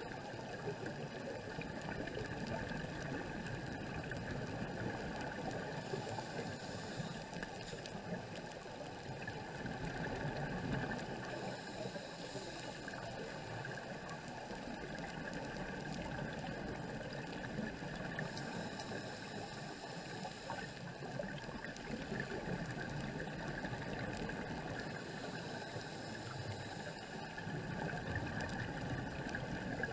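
Underwater ambience heard through a camera's waterproof housing: a steady, muffled rush of water noise. Every several seconds a brief hissing bubble sound from a scuba diver's exhaled regulator bubbles comes through.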